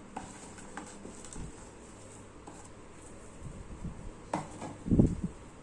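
Faint scattered taps as fried onions are dropped by hand onto rice in a pressure cooker pot, with a dull thump about five seconds in.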